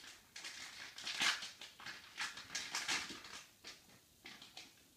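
Clear plastic packaging bags crinkling and rustling in the hands as they are opened and the contents pulled out, in irregular bursts.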